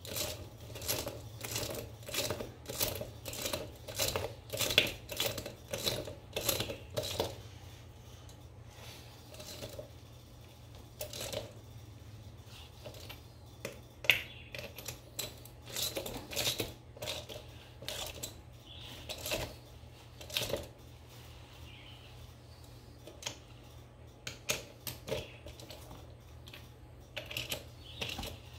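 Hand wrench running new lug bolts down onto a tractor's front wheel hub: bursts of quick metallic clicks and rattles as the handle is worked, with short pauses between bolts.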